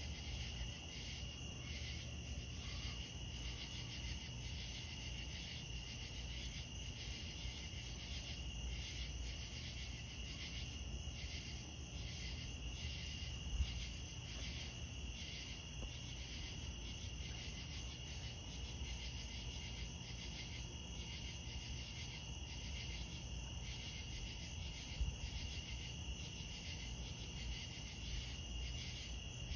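Chorus of night insects: a steady high-pitched trill with rhythmic pulsing chirps, over a low rumble. Two brief knocks, about halfway through and near the end.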